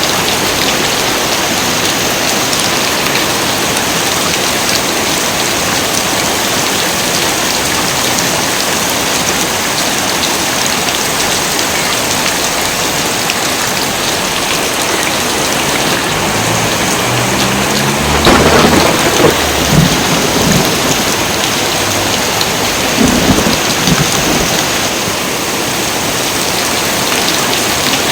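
Heavy rain pouring steadily, with thunder rumbling in about halfway through and swelling twice before fading.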